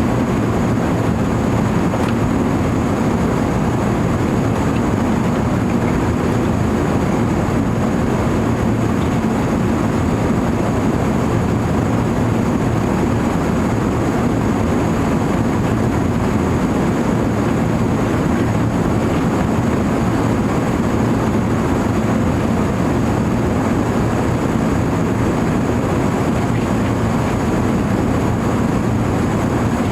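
Steady cabin noise inside an Airbus A380 in flight: engine and airflow noise, low and even, with a faint steady high whine over it.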